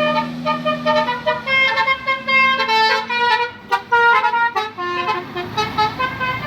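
Indonesian bus 'telolet' basuri musical horn playing a rapid tune of short notes that step up and down in pitch, with quick stuttered notes in the middle.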